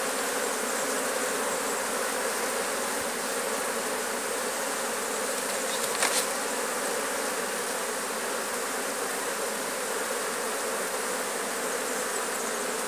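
Honeybees from an open hive buzzing steadily as a mass, with one brief click about six seconds in.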